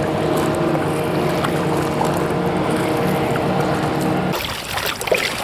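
A boat motor running at a steady pitch over wind and water noise. It cuts off abruptly about four seconds in.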